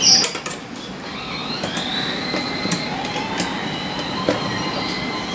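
Usha Janome Excella sewing machine's electric motor running: a whine rises in pitch about a second and a half in, then holds steady, with light clicks from handling around the needle plate.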